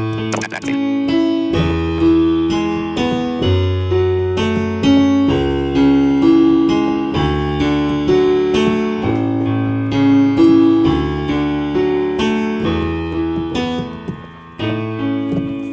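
Yamaha Clavinova CVP-79 digital piano played on one of its sampled acoustic piano voices: a steady run of chords over changing bass notes, with the last chord left to ring and fade near the end.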